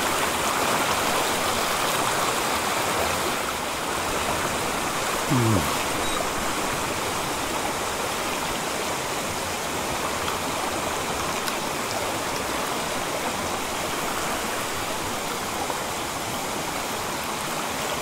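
Small mountain stream flowing over rocks close by: a steady, even rush of water.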